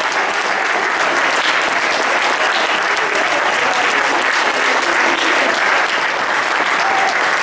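Church congregation applauding, a steady, even round of clapping.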